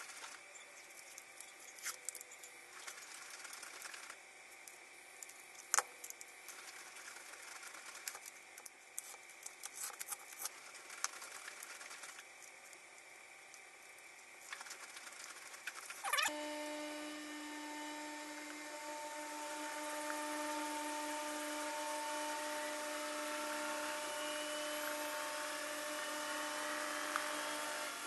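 Light clicks and knocks of hand work in a workshop. About halfway through, an electric power tool motor starts and runs at a steady pitch.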